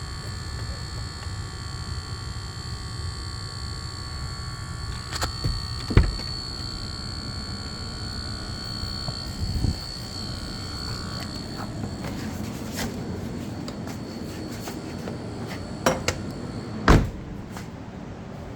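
High-pitched electronic buzz in a Lucid car's cabin, an unexplained fault noise, over a low steady rumble. Its lower tones fade out about eleven seconds in and the highest about fifteen seconds in; a few short knocks land about six seconds in and near the end.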